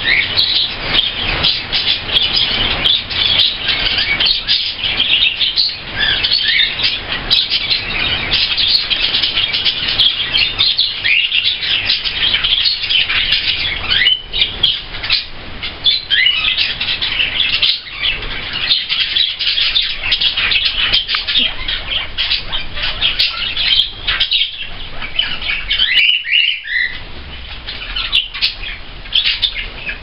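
A flock of budgerigars and cockatiels chattering and chirping without a break: a dense, loud, high-pitched twitter, with a few short whistled calls standing out.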